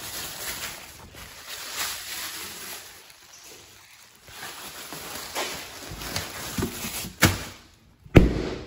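Thin plastic bag crinkling as it is handled, with a few sharp knocks in the second half and one heavy thump, the loudest sound, about eight seconds in.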